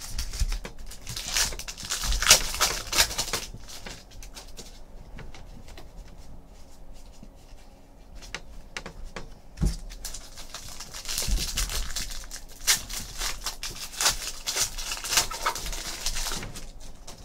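Baseball cards being shuffled and flicked through by hand, and a foil card-pack wrapper crinkling as it is pulled open. The rustling comes in two spells with a quieter stretch between them.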